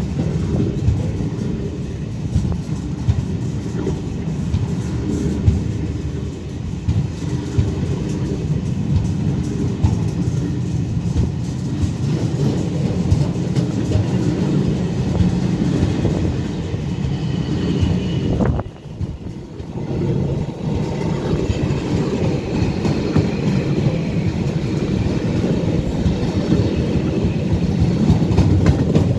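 Container flat wagons of a freight train rolling past close by: a steady, loud low rumble of steel wheels on the rails, dipping briefly about two-thirds of the way through before building again.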